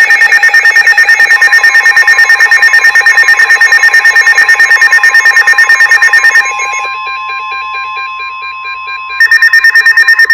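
Weather alert radio sounding its alarm for a new severe thunderstorm warning: rapid, loud electronic beeping over the steady NOAA Weather Radio warning alarm tone. The beeping stops about six seconds in, leaving the steady tone, and starts again about a second before the end.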